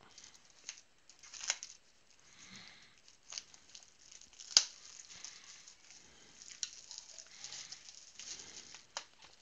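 Plastic shrink wrap crinkling and crackling as it is torn and pulled off a sealed cardboard trading-card box, with a sharp snap about halfway through.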